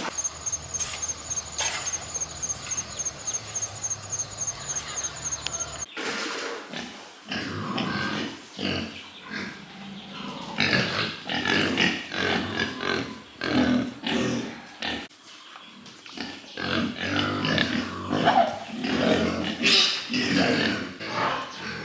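Pigs grunting in busy, irregular short calls. The first few seconds are quieter, with faint fast ticking; the grunting starts about six seconds in.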